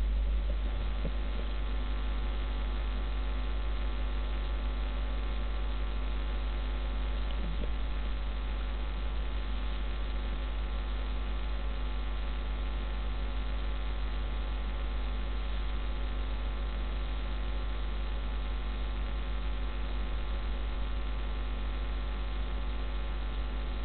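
Steady low electrical mains hum, with a faint hiss above it.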